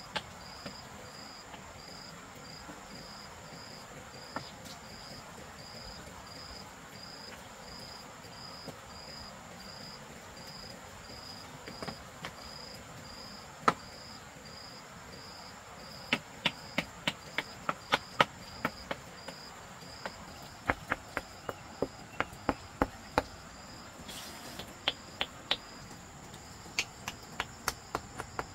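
Insects chirping: a high pulsed chirp repeating about twice a second over a steady high hum. From about halfway in, sharp knocks come in quick irregular runs and are the loudest sound.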